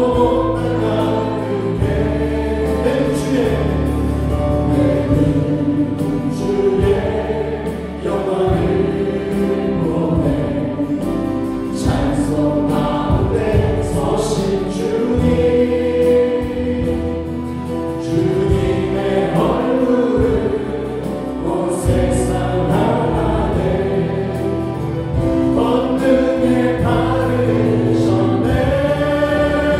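Voices singing a worship song together, backed by a live band: Yamaha Montage synthesizer keyboards, bass guitar and drums with cymbals.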